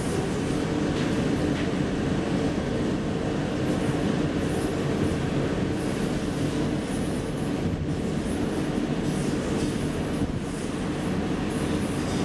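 1985 KONE inclined elevator car travelling up its incline: a steady running rumble with a constant hum underneath.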